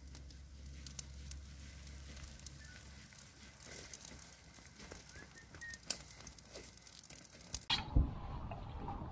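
Wood fire smouldering under green spruce boughs, hissing softly with scattered crackles and pops. Near the end the sound changes abruptly, with one thump.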